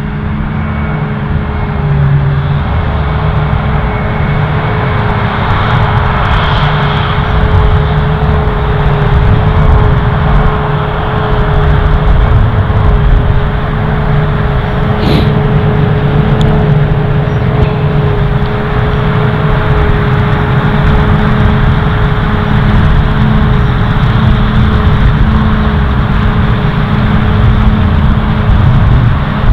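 New Holland FR9060 forage harvester chopping maize, its engine running steadily under load with a constant whine, while tractors pulling silage trailers run alongside.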